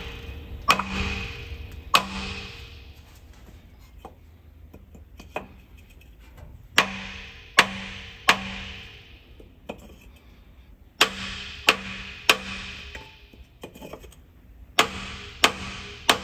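Hammer blows on a wooden block resting on the pistons of a seized Austin-Healey Sprite engine, in groups of about three sharp taps a few seconds apart, each with a short metallic ring. The pistons are rusted fast in their cylinders, and the taps are meant to jar them loose.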